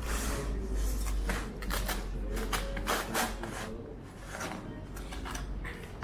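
A run of short, irregular scraping strokes, a few a second, from kitchen work with a tool on a hard surface, over a steady low hum.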